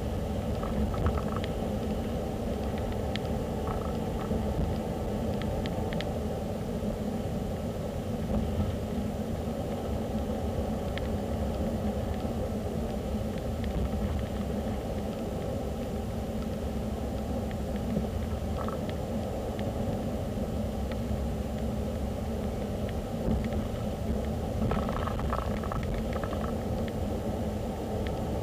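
Steady low rumble of a car driving along, engine and tyre road noise picked up by a windscreen dashcam, with a few faint short clicks and blips.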